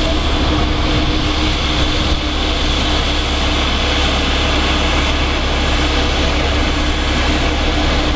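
Embraer E190 jet's two GE CF34-10E turbofans running at taxi power as the airliner rolls slowly by: a loud, steady jet noise with a high whine on top.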